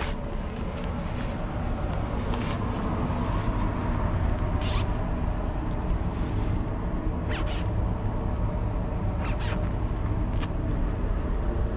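Low, steady rumble of handling noise from a hand-held camera being carried at a walk, with short rustles or scuffs every couple of seconds.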